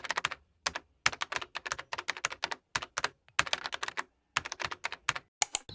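Typing on a keyboard: quick runs of key clicks, broken by short pauses.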